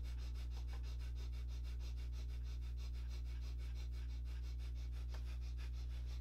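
Rapid, rhythmic breathing through the nose at an even pace, during an arms-raised breathing exercise, over a steady low hum.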